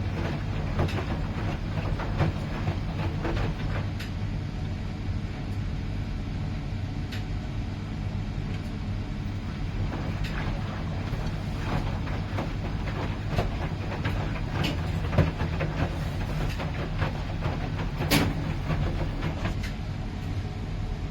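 Miele PW 6080 commercial washing machine running. A steady low hum of drum and motor is heard throughout, with scattered light clicks and knocks, the sharpest of them near the end.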